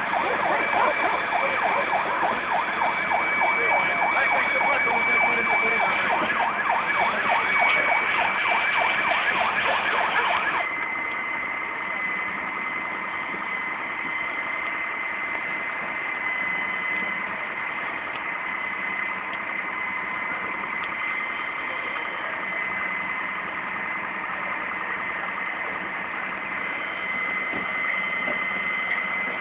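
Fire engine running at a burning car with a steady high-pitched whine over its engine. A dense rapid crackle over it stops abruptly about ten seconds in, leaving the engine and whine a little quieter.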